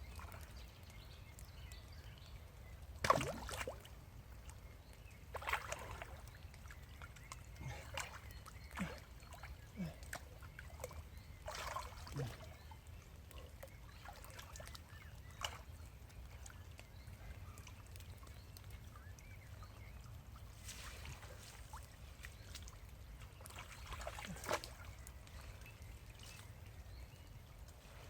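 Water splashing and sloshing in scattered short bursts, about eight, the loudest about three seconds in, over a faint steady low rumble.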